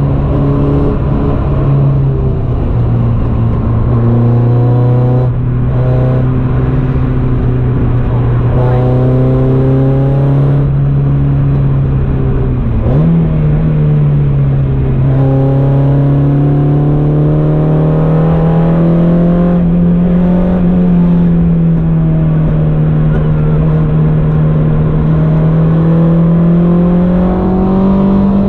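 Peugeot 106 Quicksilver's four-cylinder engine heard from inside the cabin, running hard under load with its pitch slowly climbing. Its pitch briefly dips and jumps about halfway through. Road and wind noise run underneath.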